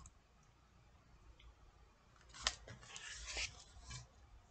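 Near silence, then about halfway through a click followed by soft paper rustling as a paperback book is handled.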